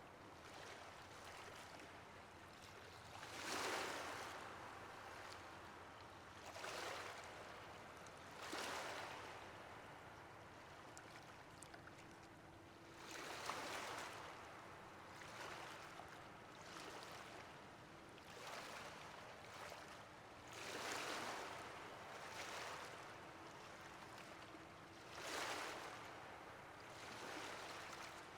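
Ocean waves breaking and washing in: a swell of rushing noise every few seconds over a low, steady wash, with about six stronger waves.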